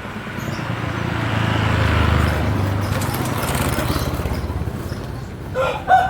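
A small motor vehicle's engine passes by, getting louder to about two seconds in and then slowly fading. Near the end a rooster begins to crow.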